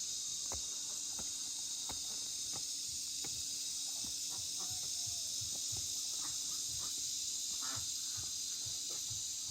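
Steady, high-pitched chorus of insects, with scattered light clicks and taps throughout.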